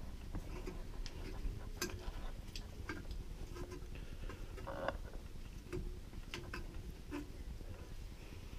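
Screw-type valve spring compressor (Laser 2609) being wound down on a valve spring, giving faint, irregular metallic clicks and ticks about once a second, with a slightly louder knock about five seconds in. The spring is being compressed further to free collets stuck in the valve.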